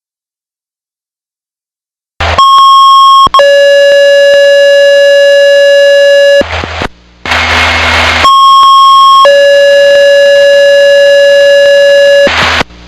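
Two-tone sequential dispatch paging tones over a radio, loud and clipped: about a second of a higher tone, then about three seconds of a lower tone, sent twice to alert fire and EMS pagers. Short bursts of radio static come before, between and after the two tone pairs.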